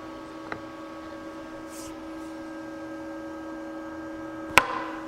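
A faint steady hum of a few held tones, with one sharp metallic click and a short ring near the end as the slot mortiser's hold-down clamp is tightened onto a wood block. The clamp loads a freshly welded cast-iron part, and it holds without cracking.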